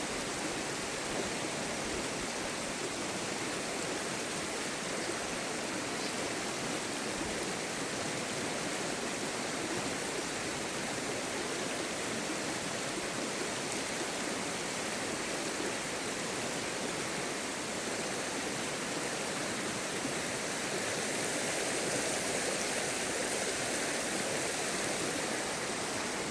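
Steady rush of flowing stream water, swelling a little near the end.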